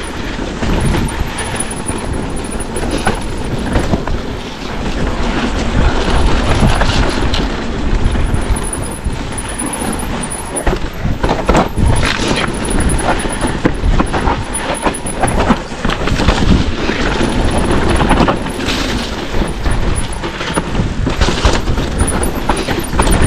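Mountain bike riding down a rough trail: a continuous rumble of wind on the microphone and tyres on the ground, broken by frequent knocks and rattles of the bike over bumps.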